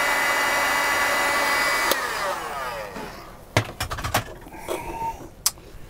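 Electric heat gun blowing steadily while shrinking heat-shrink terminals on switch wires. About two seconds in it is switched off with a click and its fan winds down with falling pitch, followed by a few knocks.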